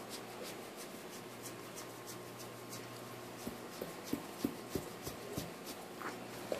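Fingernails scratching a black Labrador's fur in quick, soft strokes, about three a second. In the second half come a few short, sharp smacks as the dog licks the air in response to the scratching.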